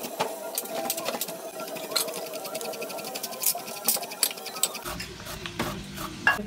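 Cabbage being grated on a metal box grater into a glass bowl: quick repeated rasping strokes, about three a second.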